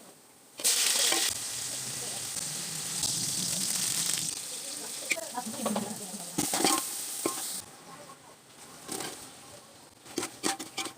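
Food sizzling in hot oil while cooking pulao, with stirring. The sizzle starts suddenly about half a second in and dies down about seven and a half seconds in. A few light knocks follow near the end.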